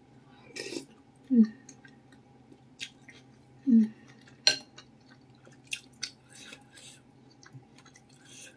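Close-up chewing of meatball and noodles in soup, with many small wet mouth clicks. Two short falling 'mm' sounds of enjoyment come about a second and a half and four seconds in, and a metal spoon clinks once against the ceramic bowl about halfway through.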